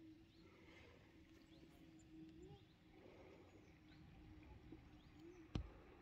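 Near silence: faint outdoor ambience with faint, distant bird chirps and a low steady hum, broken by a single sharp click near the end.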